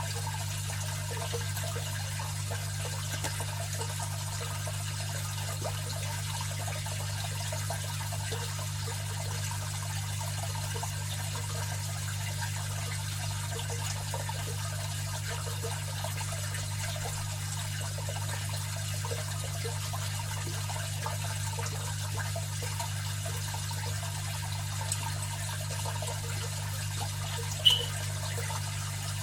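Aquarium filter running: water trickling and splashing steadily over a constant low hum. A brief sharp click near the end.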